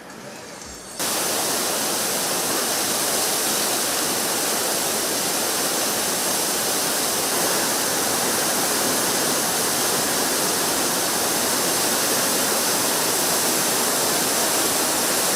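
Large waterfall pouring heavily, a steady, dense rush of falling water that cuts in suddenly about a second in.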